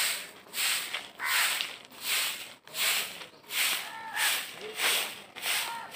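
A short hand broom sweeping a packed-earth courtyard in quick, even strokes: a dry swish roughly every two-thirds of a second.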